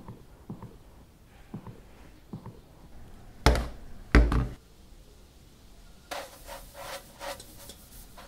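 Soft footsteps, then two heavy thumps close together as a doll house is set down on a wooden table, then a run of scraping and rattling as it is handled on the tabletop.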